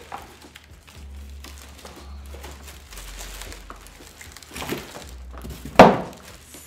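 Clear plastic film wrapped around a folded rollator crinkling and rustling as it is handled and lifted out of a cardboard box, with one sharp, much louder noise near the end.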